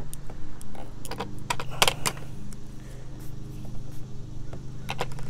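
Metal pruning shears and tools clicking and clinking as they are handled: a scattering of short sharp clicks, several together about two seconds in and a couple more near the end, over a steady low hum.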